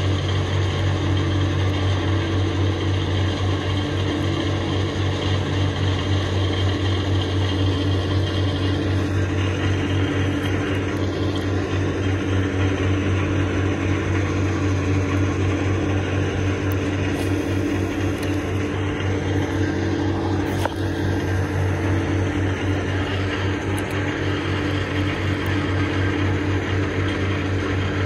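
Steady low mechanical hum of heavy machinery or engines running without change, with a constant low drone.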